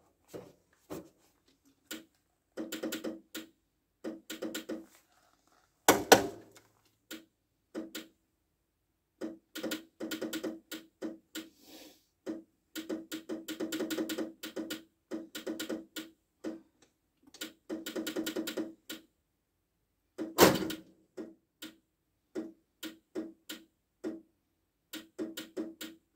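Bursts of rapid clicking and rattling from hands working on a machine, with two louder knocks, one about six seconds in and one about twenty seconds in.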